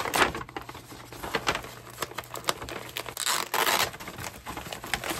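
Brown kraft paper wrapping being unfolded and pulled back by hand, crinkling and rustling unevenly, with a louder stretch of crinkling about three seconds in.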